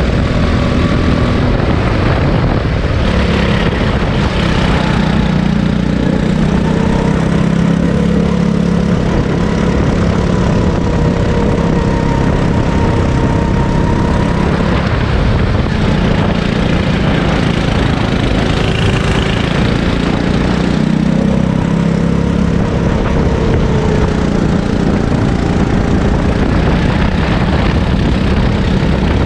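Sodi kart's engine running under load on a lap, heard from on board, its pitch rising and falling as it speeds up and slows through the corners.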